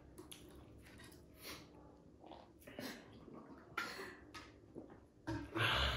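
Quiet, scattered chewing and mouth sounds of people eating dahi puri, with a louder short burst near the end.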